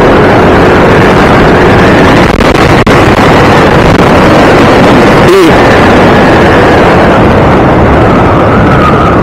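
Loud wind noise buffeting an SJCAM SJ8-series external microphone that is mounted on the side of a motorcycle helmet with only its stock foam cover, with the motorcycle's running and road noise underneath. The sensitive mic is overwhelmed by the wind at riding speed.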